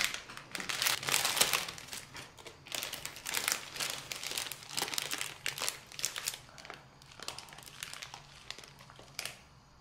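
Plastic snack wrapper crinkling and rustling as it is handled, in irregular bursts that are loudest in the first few seconds and thin out toward the end.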